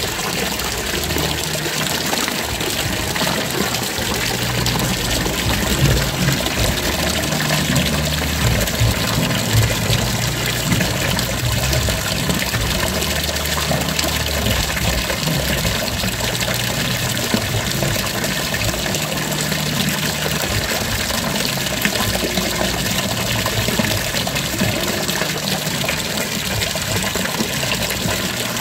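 Fountain water splashing steadily into a stone basin.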